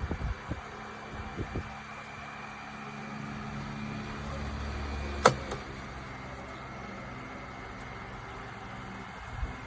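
Comfort Zone CZ121BK oscillating table fan running with a steady hum and a faint high whine, a couple of light knocks in the first second or so and one sharp click about five seconds in.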